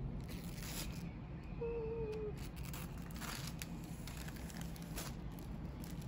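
Protective paper sheet being pulled off a new MacBook Air's screen, rustling and crinkling several times.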